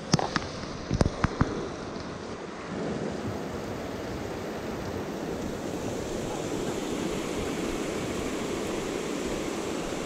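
Mountain stream water rushing steadily. A few sharp knocks come in the first second and a half.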